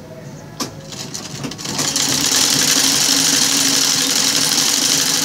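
Old black sewing machine starting up a second or so in and running steadily at speed, stitching a ruffled fabric strip, after a single click shortly before.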